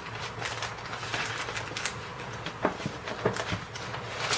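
Snack packaging and the cardboard box being handled: irregular crinkling and rustling, with a few sharp clicks past the middle, over a low steady hum.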